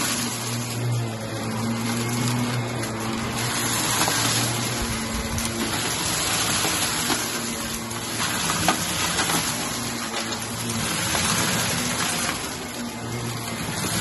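Shark upright vacuum cleaner running over carpet with a steady motor hum and airflow hiss that swells and eases as it is pushed back and forth, with scattered clicks and rattles as it sucks up balloon scraps and grit.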